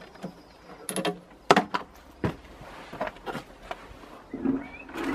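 Irregular knocks and clinks of hand tools and mower parts being handled as the mower is taken apart, with the sharpest clacks about a second and a half to two and a half seconds in.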